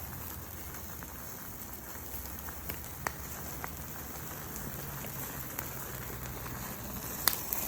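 Coffee maker burning after its thermal cutout and thermal fuse were disabled: a steady hiss with a few sharp crackles.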